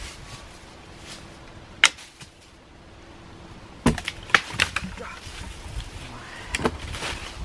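Footsteps through dry leaves and deadwood, with sharp wooden knocks and snaps: one about two seconds in, a quick cluster around four seconds, and another near the end.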